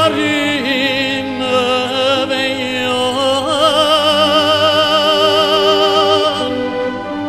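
Music: a solo singer with strong vibrato over sustained instrumental accompaniment, holding one long note through the second half.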